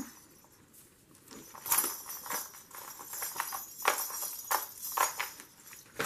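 Handling noise from a handmade junk journal and a picture book being moved on a table: about two seconds in, a run of irregular light clicks and rustles starts, with the journal's dangling bead and bell charms clicking together.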